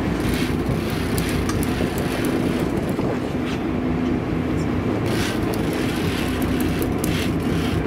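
Sport-fishing boat's engine running steadily with a constant low hum, and hissing noise swelling briefly a few times over it.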